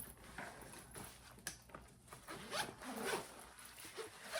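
A zipper being pulled in several short rasping strokes.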